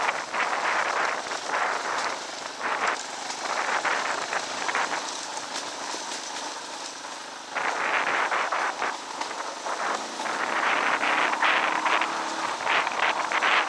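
Dual-sport dirt bike ridden over a rocky trail: the engine runs under heavy wind noise on the microphone, with rattles and knocks from the rough ground. The sound eases off for a couple of seconds in the middle and gets louder again just past halfway.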